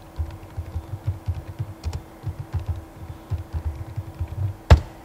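Typing on a computer keyboard: a quick run of soft key presses, then one louder sharp click near the end. A faint steady hum runs underneath.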